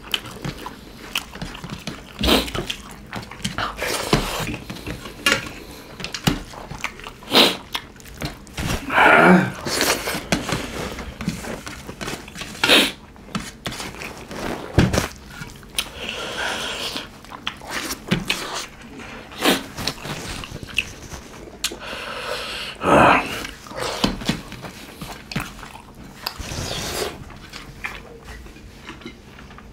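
Close-miked eating: chewing and mouth noises of two people working through mouthfuls of rice porridge, with fingers scraping and tapping steel plates in scattered irregular clicks.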